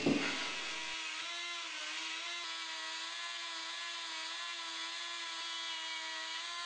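Flex-shaft rotary carving tool whining steadily at high speed as it carves a walnut figure, its pitch wavering slightly under load.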